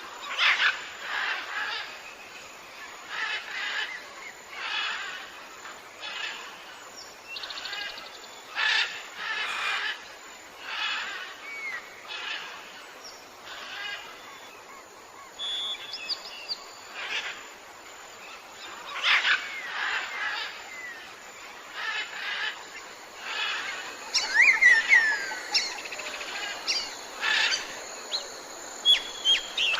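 Birds calling: a short, rough call repeated about every one to two seconds, mixed with a few brief whistled notes that slide down in pitch, the loudest flurry of them about two-thirds of the way through.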